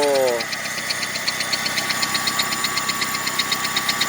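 2002 Saturn 1.9-litre four-cylinder engine running with a rapid, even tapping (a "golpeteo"), several taps a second. The owner places it up in the cylinder head and suspects a rocker arm, a valve spring or a worn, loose camshaft, not a rod knock.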